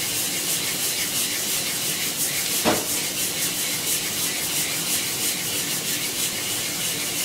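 Green Brazil coffee beans tumbling and scraping inside a hand-held mesh roaster that is shaken back and forth over a gas burner. The rustle comes in a steady rhythm of about three shakes a second, with one sharper click about two and a half seconds in. This is the early drying stage of the roast, well before first crack.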